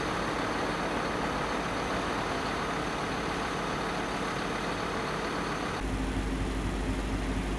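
Engine of a parked truck running steadily at idle. About three quarters of the way through, the sound changes abruptly to a steadier, lower hum with a strong deep drone.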